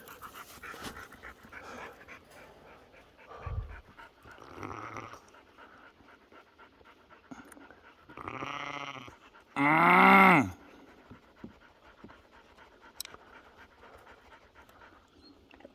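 A dog panting steadily, with two long goat bleats about eight and ten seconds in. The second bleat is the louder; its pitch rises and then falls.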